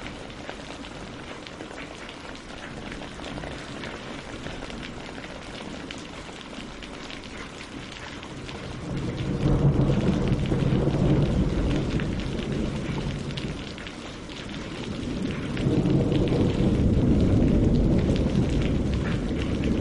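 Steady rain falling, with fine patter of drops, on leaves and lake water. A low rolling rumble of thunder rises about halfway through, dies down, then swells again near the end.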